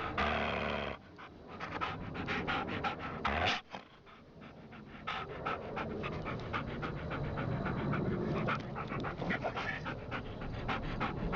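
Rapid, steady panting breaths close to the microphone, with two louder surges near the start and about three and a half seconds in.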